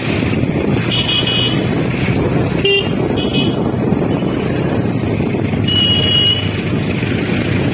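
Steady low rumble of a motorcycle riding through a traffic jam, with short vehicle-horn beeps about a second in, twice near three seconds, and a longer one around six seconds.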